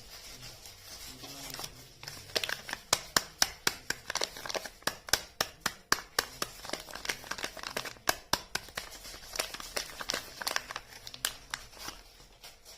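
Soap packaging being unwrapped by hand: a soft rustle, then a run of sharp crinkling crackles and tearing that slows and fades near the end.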